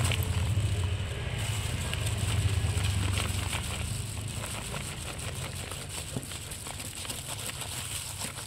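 Kitchen knife cutting through a jackfruit's rind and the fruit being pried apart, a stream of small crackling clicks, over a low rumble that fades after about three seconds.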